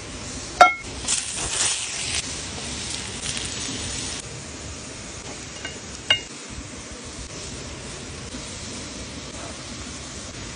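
A metal frying pan clinks with a short ring as it is set over the campfire, then food sizzles in the hot pan for a few seconds; a second metallic clink comes about six seconds in as the vegetables are stirred. A steady rush from the nearby waterfall runs beneath.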